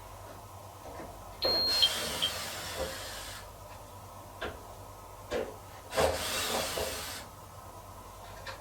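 Miele T1 heat-pump tumble dryer running with a load of towels near the end of its cycle: a steady low hum, broken twice by a loud hissing rush lasting a second or two, with a few soft knocks in between.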